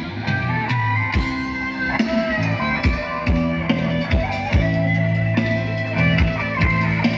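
Band music played through a parade sound truck's loudspeaker system: an electric guitar melody over bass and a steady kick drum, in an instrumental passage with no singing.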